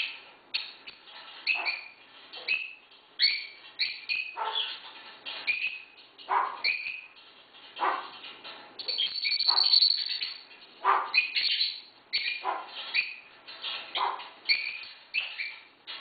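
African grey parrot imitating a dog's barking: a steady run of short bark-like calls, one or two a second, many sliding upward in pitch, with a longer, louder, more continuous stretch a little past the middle.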